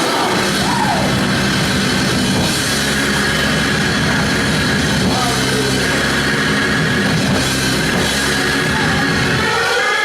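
Live band playing instrumental music with a drum kit, over steady held low notes.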